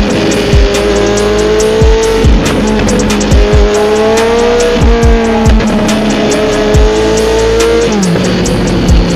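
Loud music track with deep, irregular bass-drum kicks and fast hi-hat ticks. Under it runs a sustained, engine-like droning tone that slowly rises in pitch and drops back, about halfway through and again near the end.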